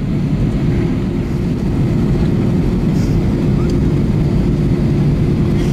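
Airbus A319's jet engines running at takeoff power: a loud, steady drone with one held tone, swelling slightly in the first second and then holding.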